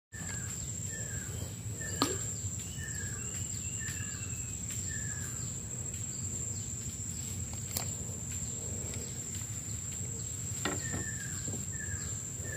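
Swamp-forest ambience: a steady high-pitched insect drone, with a bird giving runs of short falling notes about two a second, through the first half and again near the end. A couple of sharp clicks break in.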